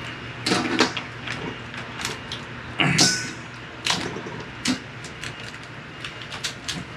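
Kona crab shells cracking and snapping as the legs are broken off by hand: a series of sharp cracks and clicks, the loudest about half a second and three seconds in, with quicker small clicks near the end.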